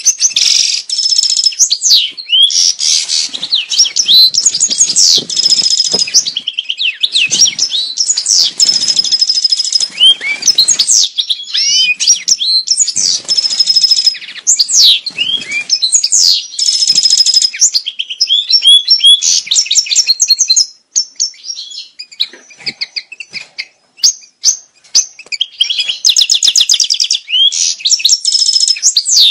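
European goldfinch breeding song, the mating song played to stir caged goldfinches into breeding condition. It is a fast, run-on twitter of high chirps, glides and buzzy trills that drops back briefly about three-quarters of the way through, then resumes.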